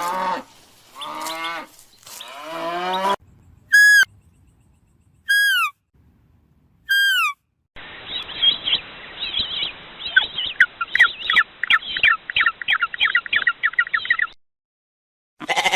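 A string of separate animal calls, one clip after another: a few pitched cries, then three identical short falling calls about a second and a half apart, then a dense chorus of rapid chirps that stops abruptly.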